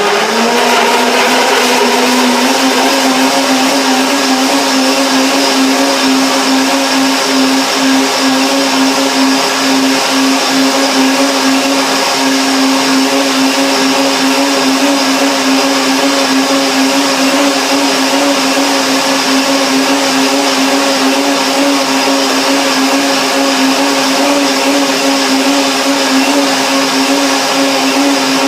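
Electric countertop blender running at high speed, puréeing carrots, apple, pear and water into a thick soup; a loud, steady motor whine that climbs in pitch as it comes up to speed at the start and begins to drop as it is switched off at the very end.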